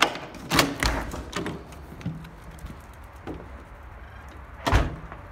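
A handful of sharp knocks and thumps at uneven intervals, the loudest at the very start, about half a second in, and near the end, over a low background.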